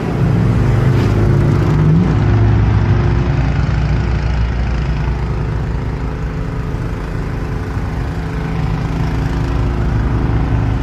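A motor vehicle engine running loudly with a steady low note, revving briefly with a rise in pitch about two seconds in.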